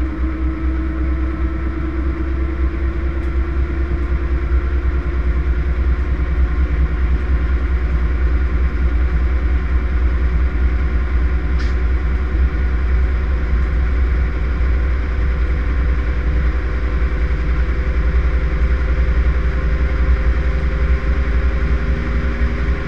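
Front-loading washing machine on its spin cycle, heard from inside the spinning drum: a heavy steady rumble with a motor whine that rises slowly in pitch as the drum gathers speed.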